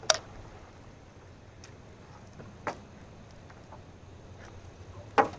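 Three sharp knocks or clicks: a loud one at the start, a softer one partway through and a loud one near the end, with faint ticks between, over a faint steady low hum.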